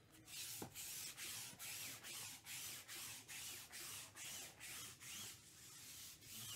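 A used-up lint roller rolled back and forth over a table mat in quick, even strokes, about two a second, each with a hissing, sticky rub.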